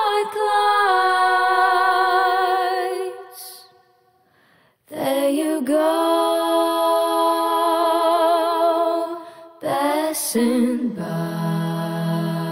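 Background song: a voice singing long, held notes with vibrato, breaking off twice.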